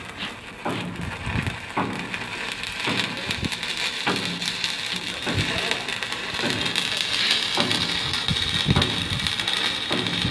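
Stick welding arc burning on steel plate: a steady crackling sizzle with irregular sharp pops as the electrode runs up a vertical seam, the hiss growing brighter from about halfway through.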